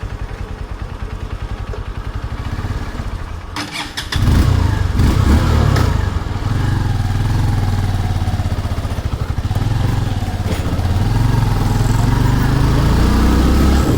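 Vehicle engine idling with a steady low pulse. About four seconds in it revs up loudly and pulls away, running under load with its pitch rising and falling.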